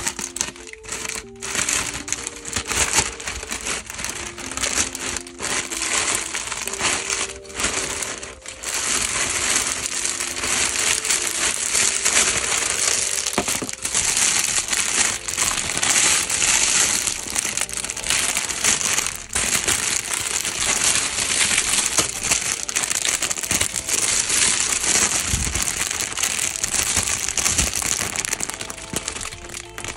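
Plastic poly mailer and clear plastic bags crinkling and rustling steadily as hands pull them open and handle them close up. Soft background music with a simple melody sits under it at first and fades out about ten seconds in.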